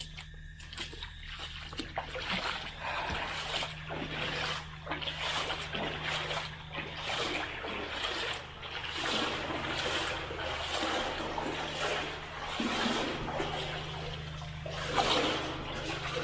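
A person wading through standing water on foot, splashing and sloshing in an uneven run of steps.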